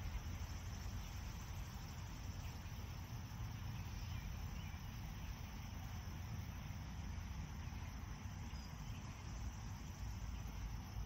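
Steady chirring of crickets and other meadow insects over a low wind rumble on the microphone, with a few faint bird chirps a few seconds in.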